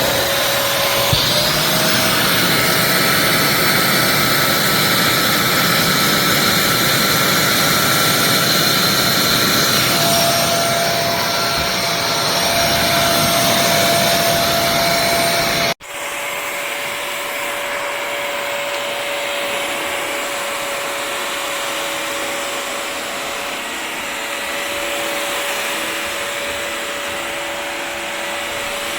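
Bissell CrossWave HydroSteam wet-dry floor cleaner running, its motor giving a steady whine that steps up in pitch twice. About two-thirds of the way through the sound breaks off sharply for an instant, then resumes a little quieter with a lower whine.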